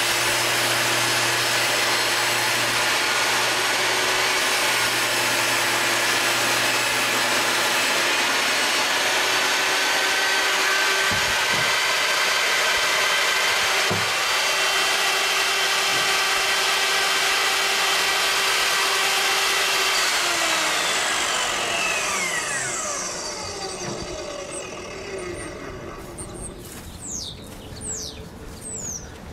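Skil TS6307-00 10-inch jobsite table saw running steadily while its 40-tooth blade cuts a sheet of 3/4-inch MDF, with two knocks around eleven and fourteen seconds in as the cut-off piece drops. About twenty seconds in the saw is switched off, and its whine falls in pitch and fades as the blade coasts down.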